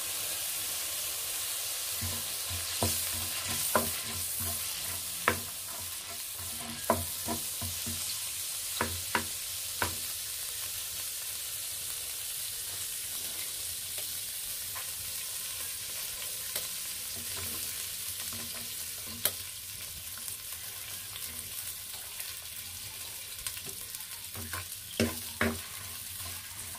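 Oil sizzling steadily in a clay pot over a wood fire, with spices frying and scattered sharp pops in the first ten seconds or so. Near the end, a wooden spatula knocks and scrapes against the clay pot as sliced red onions are stirred into the hot oil.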